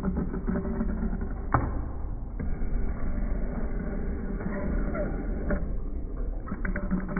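Metal shaper running, its ram stroking back and forth as the tool planes the edge of a steel plate. A steady machine hum carries two sharp clicks about four seconds apart, one with each stroke.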